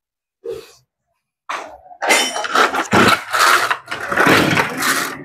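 A 27cc Kioritz two-stroke brush cutter engine being pull-started by its recoil starter cord. There are two short pulls about half a second and a second and a half in, then a dense run of repeated pulls with the engine turning over.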